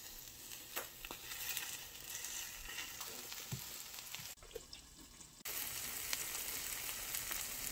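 Food sizzling as it fries in a pan, with a few light clicks. The sizzle drops away for about a second past the middle, then comes back louder.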